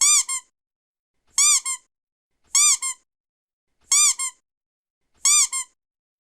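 Rubber duck squeaked repeatedly: five pairs in a steady rhythm, each a longer high squeak that rises and falls in pitch followed at once by a short one, about one pair every second and a third.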